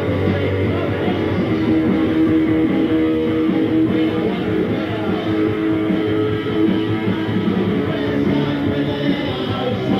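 Punk rock band playing live: distorted electric guitar, bass guitar and drums, sounding muffled.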